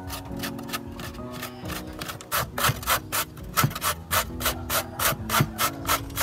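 Rhythmic scraping strokes, about four a second, getting louder about two seconds in, over soft background music.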